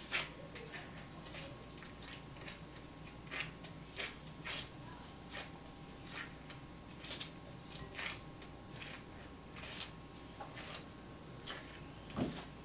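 Disposable plastic gloves crinkling and sticky bread dough squishing as gloved hands shape the dough into a ball: short, irregular rustles, with a louder one near the end.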